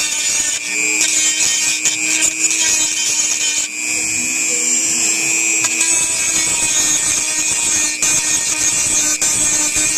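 Dremel rotary tool with a grinding-stone bit running steadily at high speed, a constant whine with scraping as the stone grinds the inside of a metal lamp socket clean.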